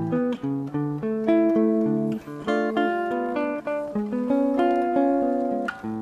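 Guitar playing a run of cluster chords, close voicings built on seconds, each plucked and left to ring, with a new chord about every half second to a second.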